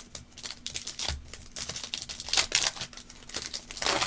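A trading-card pack wrapper crinkling and tearing as it is opened, a quick run of crackles with the loudest bursts a little past halfway and near the end.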